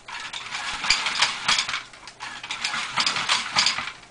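RoboRaptor robot's small geared motors driving its plastic legs backward, a rhythmic clicking clatter of gears and feet tapping and sliding on a hard, slippery floor. It comes in two runs with a short lull about two seconds in.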